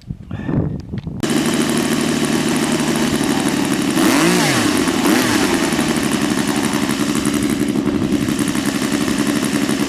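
RC model airplane motor throttled up suddenly about a second in and then running steadily at high power, with a brief rise and fall in pitch in the middle, as the plane tries to roll through high grass.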